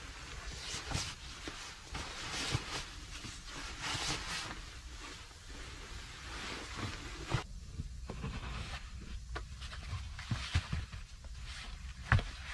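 Synthetic sleeping-bag fabric rustling in uneven swells as the bag is stuffed into its nylon stuff sack, with a few sharp clicks along the way.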